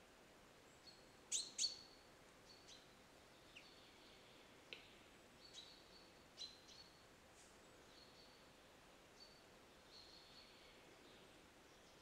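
Male western capercaillie singing its display song, faint: a scattered series of sharp clicks, the two loudest about a second and a half in. Near the end comes a falling, hissing scrape, the whetting phase of the song.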